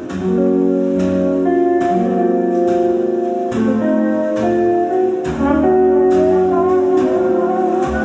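Instrumental background music: held chords over a bass line, changing every second or two.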